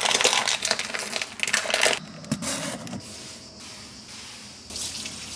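A cloth wiping spilled flour off a kitchen countertop: rubbing and scraping strokes, heaviest in the first two seconds and again near the end.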